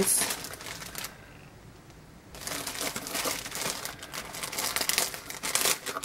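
Clear plastic packaging bag crinkling as it is handled. The rustling runs for about a second, pauses, then starts again and goes on from about two and a half seconds in.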